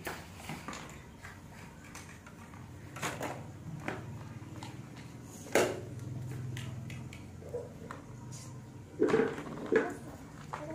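Plastic toy cookware and utensils being handled: scattered light clicks and knocks, with a sharper knock about five seconds in and two more near the end.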